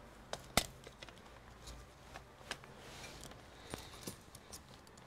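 Scattered small clicks and taps of a plastic laptop cooling fan being handled and set back into its bay in the laptop chassis, with a sharper click about half a second in.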